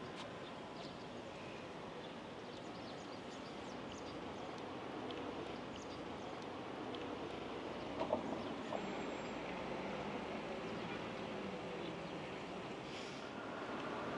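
Quiet outdoor street ambience: a steady hum of distant traffic with a few faint short chirps, and a couple of small knocks about eight seconds in.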